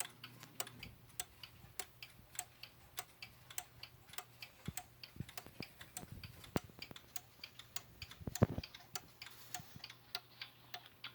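Waltham 31-day chiming wall clock's movement ticking steadily, its escapement clicking at an even beat. A few louder knocks come through the middle, the loudest about eight seconds in.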